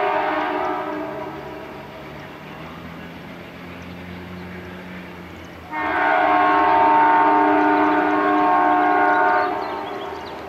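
Amtrak diesel locomotive's air horn sounding as the train approaches: a long chord that fades out about a second in, then a second long blast starting about six seconds in and lasting about four seconds. The locomotive's engine drones more quietly between the two blasts.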